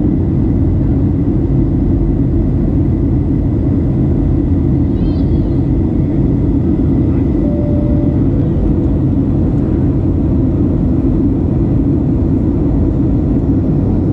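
Steady, deep roar of engine and airflow inside a Boeing 737's cabin, heard from a window seat by the wing as the airliner descends toward landing.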